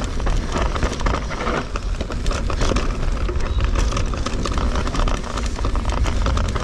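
Electric mountain bike clattering and rattling over rough ground on a fast descent, including the drive-unit rattle that the Fazua 60 motor makes downhill. A steady low rumble of wind on the microphone runs underneath.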